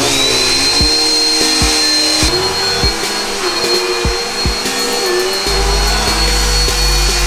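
Dirt Devil upright vacuum cleaner running, its motor's high-pitched whine rising as it spins up at the very start and then holding steady, with a few dull knocks along the way.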